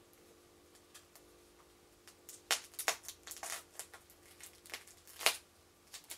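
Utility knife cutting into the tape and plastic wrapping of a small packed part, with the wrapping crinkling. About two seconds in comes a run of sharp, scratchy cuts and crinkles, and the sharpest strokes fall near the middle and near the end.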